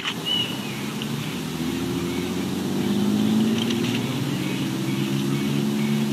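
Distant engine drone: a steady low hum that swells about a second and a half in and holds, as from a passing motorboat or light aircraft.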